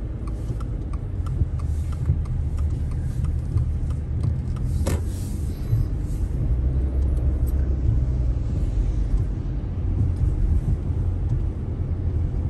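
Car driving on a rain-wet road, heard from inside the cabin: a steady low road and engine rumble with tyre hiss. Over the first few seconds a light regular ticking runs about three times a second, and about five seconds in there is one brief whoosh.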